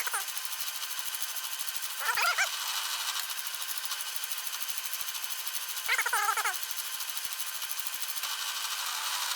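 A metal lathe runs steadily during thread-cutting passes, a constant machine hiss with a faint steady hum. Twice, about 2 and 6 seconds in, a short wavering pitched squeal rises above it.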